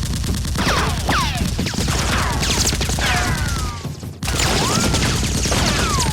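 Rapid automatic gunfire sound effects in a dense volley, laced with whistling ricochets that fall in pitch. The fire breaks off briefly about four seconds in, then resumes.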